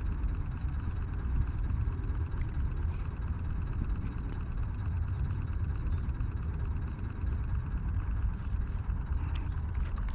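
Wind buffeting the microphone, a steady uneven low rumble, with a few faint clicks near the end.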